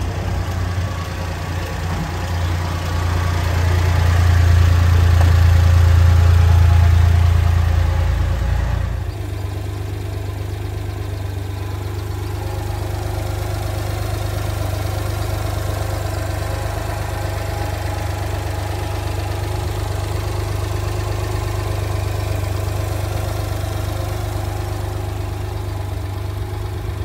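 1994 Honda Acty truck's 656 cc three-cylinder engine idling steadily. It is louder with a heavy low hum for the first nine seconds or so while heard from under the truck. It then drops to a quieter, even idle at the open engine hatch.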